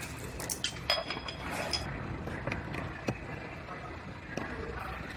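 Light clinks and taps of parts being handled in a body shop. They come several at once in the first two seconds, one clink ringing briefly about a second in, then sparser taps as the tail light is fitted against the bumper cover. A steady shop background hum runs underneath.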